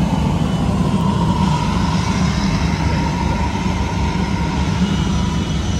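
Sprintcar V8 engine running steadily at a constant speed, a loud continuous low rumble with no revving.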